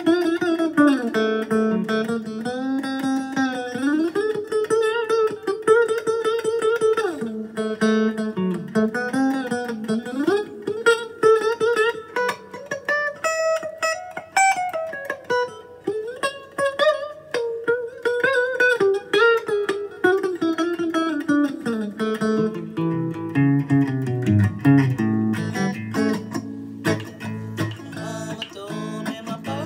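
Fender Stratocaster electric guitar played through a Fender amp: a single-note lead line full of string bends and slides, dropping to lower-register notes in the last several seconds.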